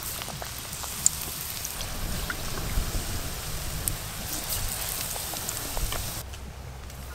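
Besan-battered eggplant slices sizzling as they deep-fry in hot oil in a metal wok, a steady crackle of popping oil. One sharp click stands out about a second in.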